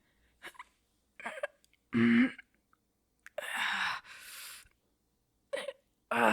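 A woman's short strained grunts and breathy exhales, a few separate bursts, the effort sounds of pushing something heavy into place as a barricade.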